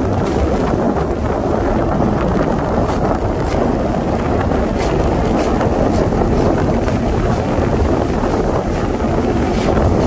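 Steady loud rumbling noise inside a ship's exhaust gas scrubber tower, with scattered light knocks and scrapes from a long-handled hand tool working at the deposits on the tower floor.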